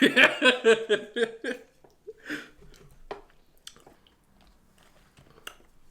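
A person chewing food, with soft mouth sounds and a few sharp crunchy clicks, following a brief stretch of voice at the start.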